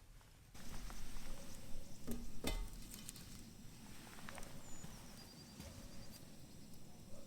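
Cookware being handled and set over a campfire: two sharp knocks about two seconds in, with light rustling and crackle around them.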